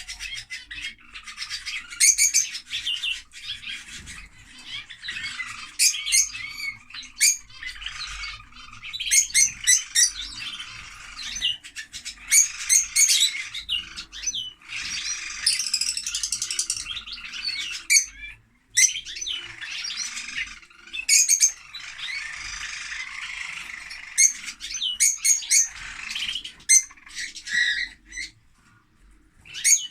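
Lovebirds chattering and chirping, with sharp, loud, high-pitched squawks rising out of a continuous twittering, broken by brief pauses.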